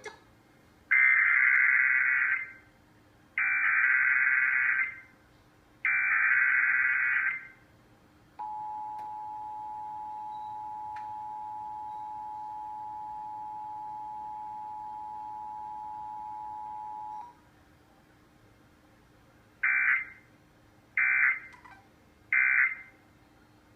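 Emergency Alert System Required Monthly Test tones: three screeching SAME digital header bursts, then about nine seconds of the steady two-tone attention signal (853 and 960 Hz). After a short gap come three brief end-of-message bursts.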